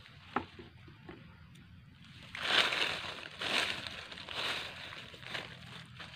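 Dry leaf litter rustling and crunching as a hand brushes through it, in several bursts over about three seconds, after a short click about half a second in.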